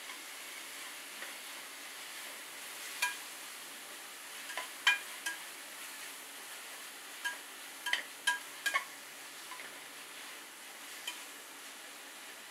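Stainless steel spatula stirring frying onions and fresh mint and coriander leaves in a metal pot, clinking sharply against the pot about nine times, over a steady soft sizzle of frying.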